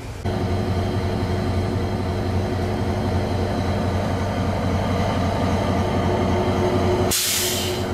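Diesel locomotive DE 33017 running at a standstill: a steady low engine hum with a steady drone above it. Near the end a short, loud hiss cuts in.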